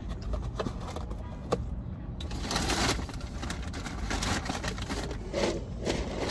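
Eating noises with rustling, over a steady low rumble. A few sharp clicks come in the first two seconds, and louder rustling bursts follow.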